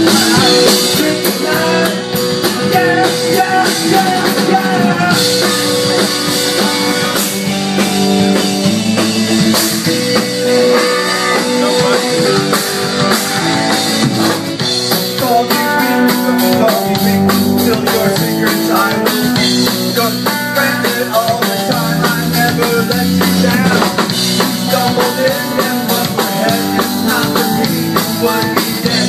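A man singing a rock song into a microphone over a live band, with a drum kit and electric guitar playing.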